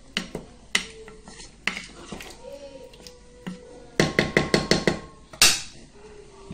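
A utensil clinking and knocking against a cooking pot: a few scattered knocks, then a quick run of about seven in a second, about four seconds in, and one louder knock just after.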